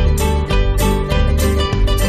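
Background music: upbeat plucked-string tune, guitar or ukulele-like notes over a steady bass beat.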